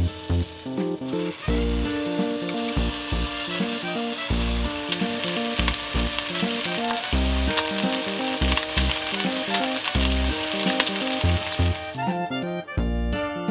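Pork jowl slices frying in a hot nonstick pan: a steady sizzle with fat crackling, starting about a second in and stopping near the end. Background music plays underneath.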